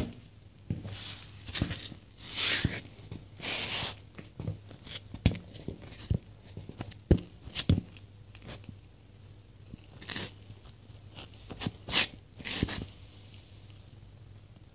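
Irregular crunching, scraping and sharp clicks from a white leather Nike Air Force 1 Mid sneaker shifting and pressing right beside the microphone on a tiled floor, with a faint steady low hum underneath. Several longer rasping crunches come about two and a half, four, ten and twelve seconds in, and the sharpest clicks come about seven seconds in.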